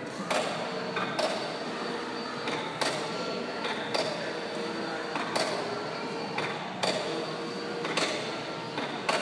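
Bungee trampoline in use: a sharp knock about every second and a quarter as the jumper lands on the mat and rebounds, over a steady background hubbub.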